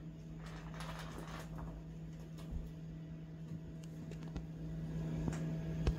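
Quiet room with a steady low hum, and faint scattered taps and scuffles from a kitten chasing a thrown toy across a tile floor and rug.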